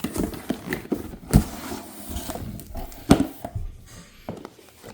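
Unboxing of a TV wall mount kit: cardboard and packaging rustling and parts clattering as they are handled, with two louder knocks, one about a second and a half in and another about three seconds in.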